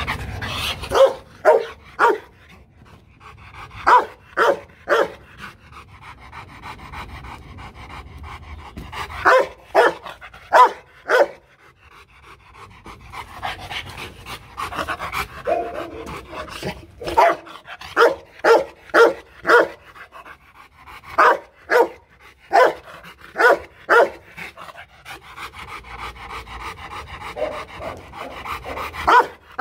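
Rottweiler barking in short volleys of two to five barks, panting in the gaps between volleys. These are playful warning barks, not an attack bark.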